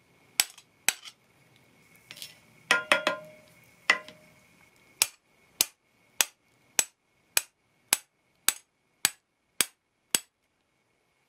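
Big hammer tapping a brass bar held inside a machinist level's vial tube, driving out the old end plug: sharp metallic taps, a few with a short ring about three seconds in, then an even run of taps just under two a second that stops near the end.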